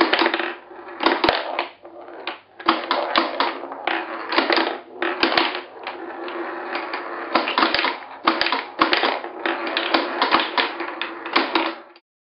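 Steel ball rolling and clattering around a homemade plywood mechanical pinball table, with many sharp wooden knocks as it hits the posts, rails and flippers. Cuts off suddenly near the end.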